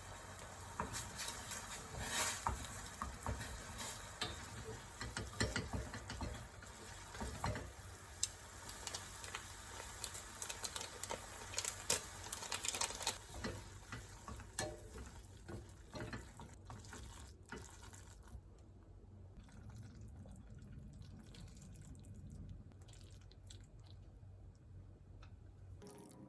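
Kitchen sounds while making Carbo Buldak instant noodles: water sloshing and stirring with scattered clicks and clinks, growing quieter for the last several seconds.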